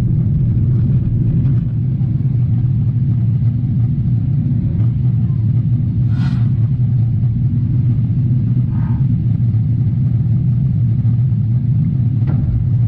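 Steady loud low rumble of a Boeing 777-300ER's engines and airflow, heard from inside the cabin in cruise flight.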